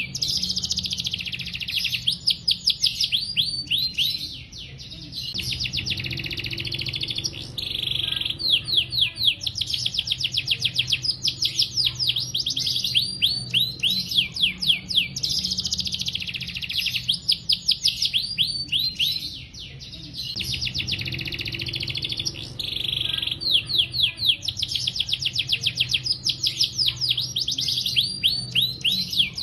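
Yellow domestic canary in full song: a long, unbroken string of fast trills and rolls, each phrase of rapidly repeated high notes lasting a few seconds before it switches to the next.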